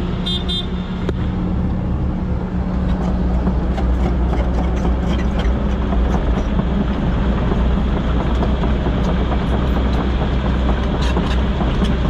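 Diesel engines of heavy equipment running steadily as a loaded dump truck pulls away from the excavator. A short, high-pitched horn toot sounds about half a second in. The running gets louder about two and a half seconds in and holds there.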